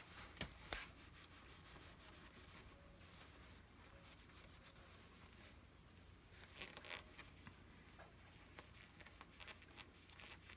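Near silence with faint scratching, rubbing and a few light clicks from cleaning a Brembo brake caliper by hand.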